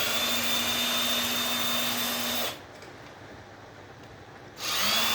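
Handheld power drill driving screws out of the breaker, its motor whirring in two runs. Each run spins up quickly to a steady high whine: the first lasts about two and a half seconds, and the second starts near the end.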